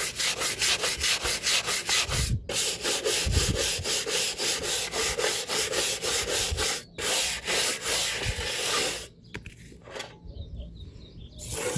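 Hand scrubbing of a cart part before painting, in fast back-and-forth strokes of about five a second with two short breaks, stopping about nine seconds in.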